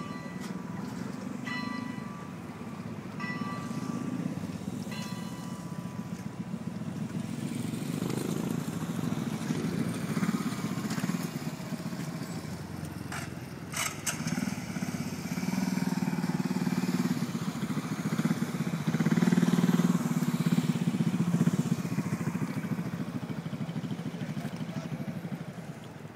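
An engine running steadily with a low rumble, growing louder past the middle and easing off near the end.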